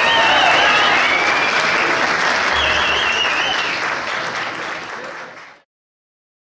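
Audience applauding, with voices calling out over it, fading out and cutting to silence about five and a half seconds in.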